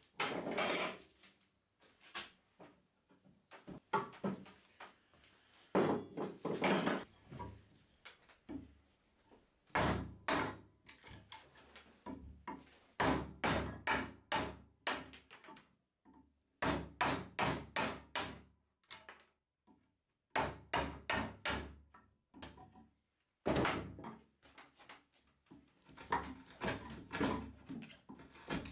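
A wood chisel is struck again and again to chop a notch out of a softwood beam, the blade knocking into the wood and splitting off chips. After a few scattered knocks in the first seconds, the strikes come in bursts of quick taps, several a second, with short pauses between bursts.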